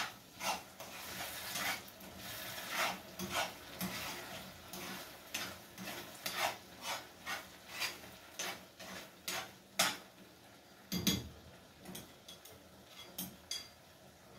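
Eggs being stirred in a non-stick frying pan with a metal utensil: short scraping, clinking strokes against the pan about two a second, with a louder knock about eleven seconds in and fewer strokes after it.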